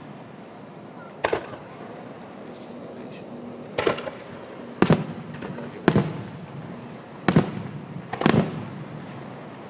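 Fireworks going off: six sharp bangs at uneven intervals, each with a short ringing tail, a few of them doubled.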